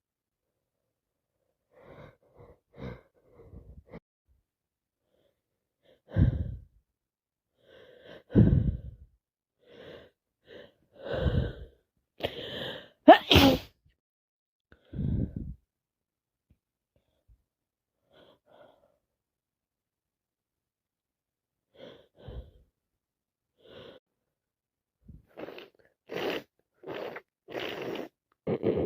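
A woman with a heavy head cold sneezing: a few gasping in-breaths build to one very loud sneeze about halfway through. Near the end comes a run of short, noisy breaths about one a second.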